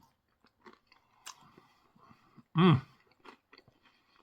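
A person chewing crunchy breaded fried chicken, with small crisp crunches throughout. About two-thirds of the way in there is a short hum from the eater, the loudest sound.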